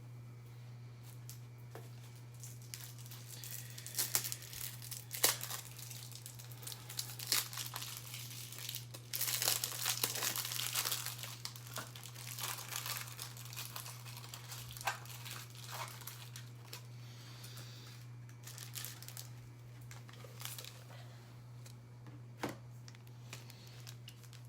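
Packaging crinkling and tearing in irregular rustles and clicks, with a longer, denser spell about nine seconds in, over a steady low electrical hum.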